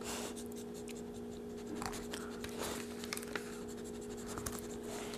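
Faint scratching, rustling and small clicks from handling a foil-wrapped taco and serving tongs, over a steady low hum.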